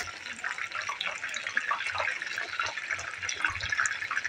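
Chicken wings deep-frying in hot oil in a metal pot: a steady, dense sizzle and crackle of bubbling oil.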